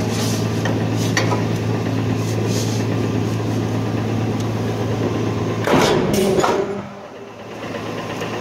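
Wysong model 1225 mechanical shear running with a steady hum. About six seconds in the foot pedal trips one stroke and the blade shears a piece of sheet metal, a loud cut lasting about a second. After the stroke the steady hum drops away and it goes quieter.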